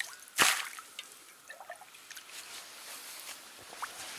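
Water tipped out of a small pot into shallow river water: one loud splash about half a second in, then scattered drips and small trickles.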